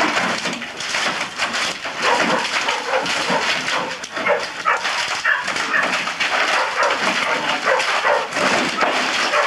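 Old wooden fence being torn down by hand: timbers creaking and squealing as they are wrenched, with repeated cracks and clatter of splintering wood.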